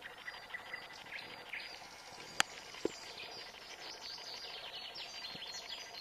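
Several songbirds singing and chirping at once, many quick high notes and trills overlapping, over a faint steady hiss. Two sharp clicks come a little before the middle, half a second apart.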